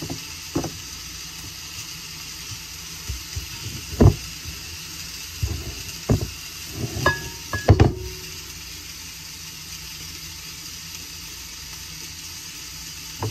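Sausage sizzling steadily in a frying pan, under a handful of soft thumps and knocks as sticky sourdough dough is lifted from a mixing bowl and set into loaf pans, the loudest about four and eight seconds in. A brief ringing clink comes about seven seconds in.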